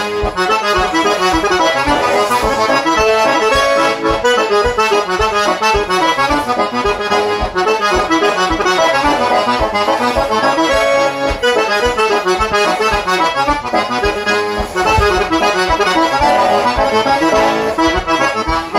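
A wooden button accordion (melodeon) playing a folk tune: a quick, continuous melody of many short notes over a regular pulse of bass chords.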